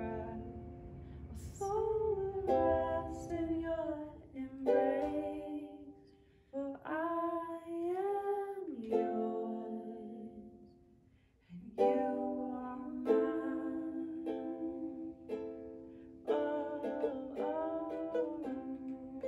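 Ukulele strummed while a woman sings a slow melody with long held notes. The music drops almost to silence for about a second a little past halfway, then the strumming and singing come back in.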